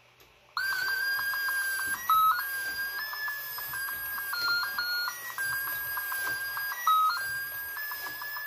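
Battery-operated Skating Bear toy playing a beeping electronic tune from its sound chip, starting about half a second in, with a faint clatter of its moving mechanism underneath.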